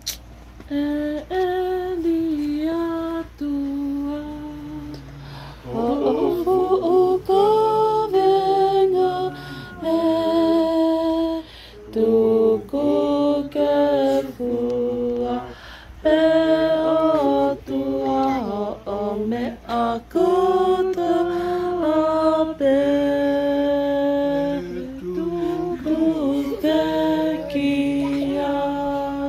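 Unaccompanied group singing: a slow melody in long held notes, phrase after phrase with brief pauses between them.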